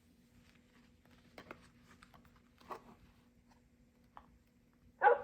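Faint rustling and small clicks of a children's button sound book being handled, over a steady low hum. Near the end the book's speaker starts playing a loud recorded sound.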